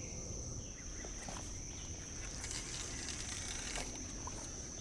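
Steady high-pitched insect chorus, a continuous thin trill, with a few faint short chirps over it.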